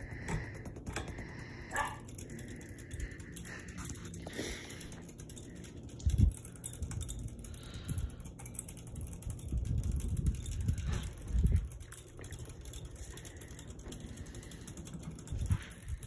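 Hampton Bay Gazebo II ceiling fan running at medium speed: a steady motor hum and blade swish with light ticking. Gusts from the passing blades buffet the microphone in low rumbles about six seconds in and again around ten to eleven seconds.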